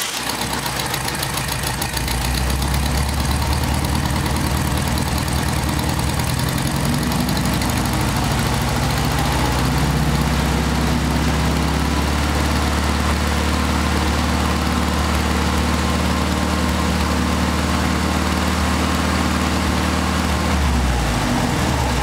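Air-cooled VW 36 hp flat-four engine idling, its speed rising over several seconds as the carburetor idle screw is turned up. It then holds steady at a fast idle.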